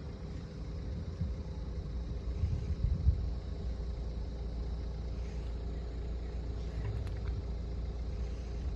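A motor vehicle engine running steadily with a low, even rumble that neither builds nor fades.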